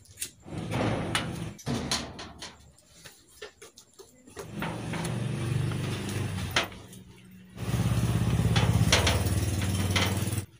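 An engine running steadily, joining about four and a half seconds in. It fades briefly and then runs louder from about seven and a half seconds, until it cuts off suddenly at the end.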